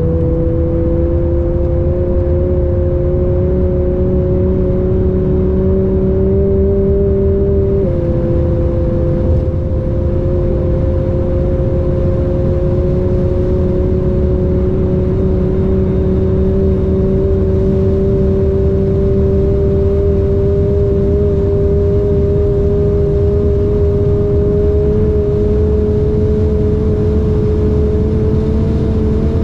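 Twin-turbo Audi R8 V10 engine accelerating hard, heard from inside the cabin. The engine note climbs slowly and steadily, drops once with an upshift about eight seconds in, then climbs again.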